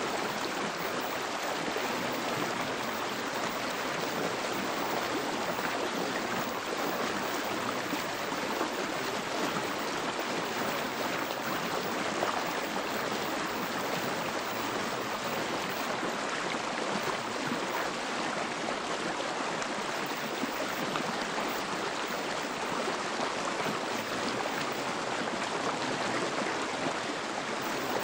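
Steady rushing water like a flowing stream, an even hiss with no breaks or changes.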